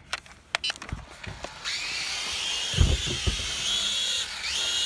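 Propel Maximum X11 toy quadcopter's small electric motors and propellers spinning up: a few clicks, then about a second and a half in a steady high-pitched whine starts, with a couple of low thumps about three seconds in and the pitch rising in sweeps near the end as throttle is given.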